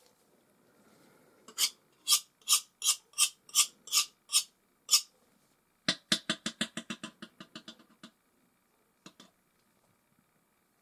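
Hard object tapping. Nine sharp, even taps come about a third of a second apart, then a run of taps that speed up and fade away like a small hard object bouncing to rest, and two faint clicks near the end.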